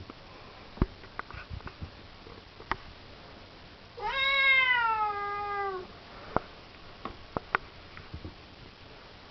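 A Siamese cat gives one long meow of about two seconds, about four seconds in. Its pitch rises at the start and slides down toward the end. Faint scattered clicks and taps sound around it.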